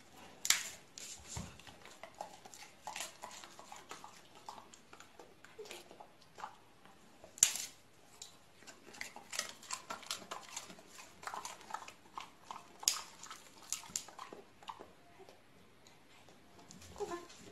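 Golden retrievers' mouth sounds: a steady run of short wet clicks and smacks from licking and nibbling, with a few sharper, louder snaps.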